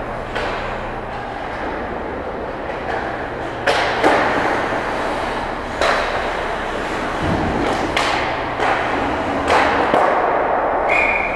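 Ice hockey play: skates scraping the ice under a steady rink din, broken by about six sharp cracks of sticks and puck striking sticks and boards. Near the end a referee's whistle blows, stopping play.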